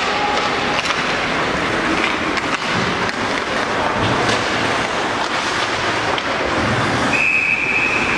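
Ice hockey game in an arena: a steady wash of skating and crowd noise with scattered sharp clacks of sticks and puck, and a referee's whistle blown once, about a second long, near the end.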